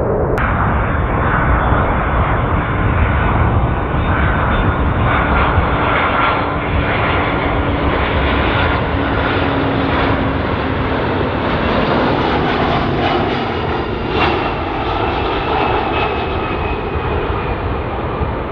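Landing jet airliner passing close by, a steady engine roar with whining tones that drift slightly lower in pitch as it goes past. It is loudest about two-thirds of the way through, then begins to fade.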